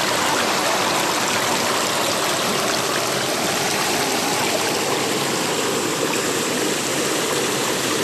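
Fast river water rushing over rocks and breaking into white water at the brink of a waterfall: a loud, steady rush.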